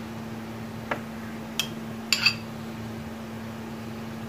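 Three light clinks of a metal spoon within about two seconds, over a steady low hum.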